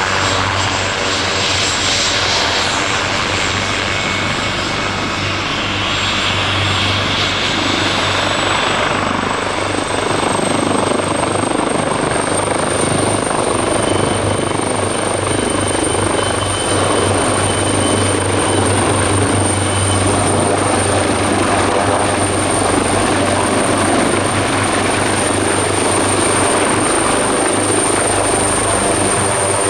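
Leonardo AW139 twin-turbine helicopter running close by: steady rotor throb under a broad rush of turbine and blade noise, with a high turbine whine that rises in pitch about ten seconds in and then holds steady.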